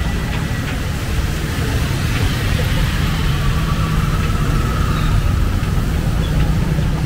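Street traffic on a wet road: a steady low engine rumble.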